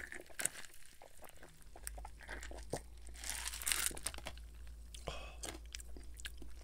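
Gulping iced fizzy Pepsi from a glass close to the microphone, with many sharp clicks of ice cubes against the glass.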